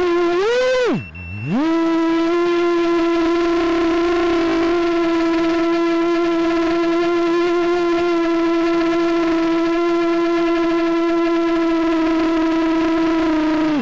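A loud, steady whine at a single pitch with many overtones. About a second in it swoops up, drops sharply low and climbs back, then holds level until it cuts off suddenly at the end.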